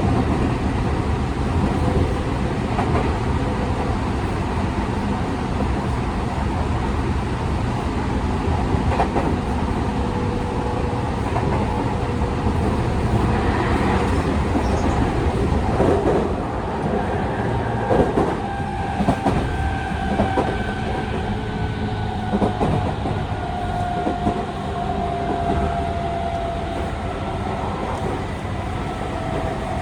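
Tokyu 5000 series commuter train running, heard inside a motor car: steady wheel and track rumble with scattered rail-joint clicks. From about halfway through, the Hitachi IGBT-VVVF inverter and TKM-98 traction motors add a thin whine that edges lower in pitch.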